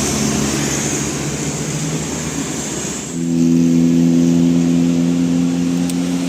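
Large vehicle, a bus, running on the road with its engine noise. About three seconds in, a louder low drone with a steady pitch begins and holds.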